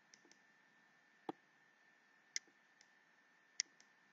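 Near silence with three faint, sharp clicks about a second apart and a few softer ticks, from the pen or pointer used to handwrite on the computer screen.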